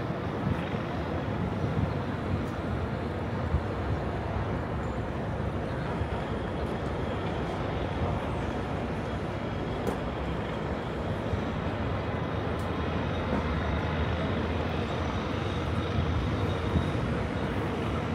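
Steady city traffic noise: a continuous rumble of vehicles with no single event standing out.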